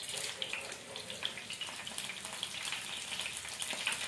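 Sliced onions and curry leaves frying in hot oil in a nonstick pan: a steady crackling sizzle with small pops.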